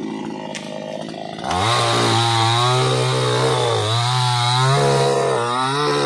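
A chainsaw gets loud about a second and a half in and runs under load, its engine pitch sagging and recovering over and over as it cuts through palm wood.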